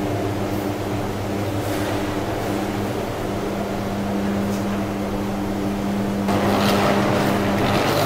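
Ladle furnace arcing through its graphite electrodes: a steady, loud electrical hum and buzz made of several low held tones. A little over six seconds in, a louder, rougher noise joins it.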